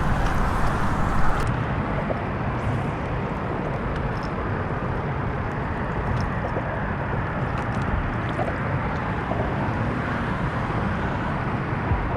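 Steady low outdoor background noise with no clear pitch, with a few light clicks in the first second or so.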